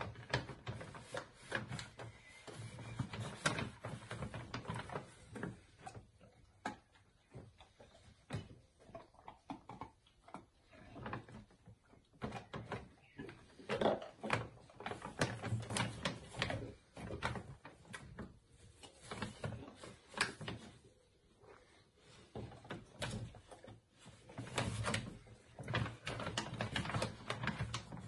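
Basset hound with its head inside a plastic bag of dry dog food, eating straight from it: the bag crinkles and the kibble crunches in an irregular run of crackles and clicks.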